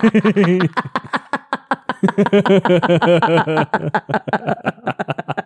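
Two people laughing helplessly in rapid pulsing fits that come in waves, easing a little around the middle and picking up again.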